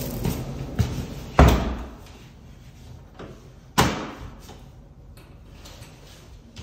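A door bangs shut about a second and a half in, and the steady outdoor street noise drops away behind it. A second sharp knock follows a couple of seconds later, with light footsteps on a wooden floor between.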